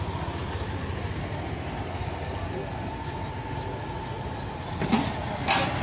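Street ambience: a steady low traffic rumble, with two short sharp clatters near the end.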